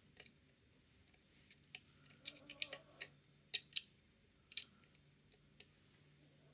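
Faint, sharp metallic clicks and taps of picking tools working the levers inside a five-lever Fichet cabinet lock, bunched between about two and four seconds in.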